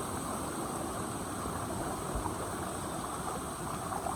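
Small mountain waterfall and stream, water rushing steadily.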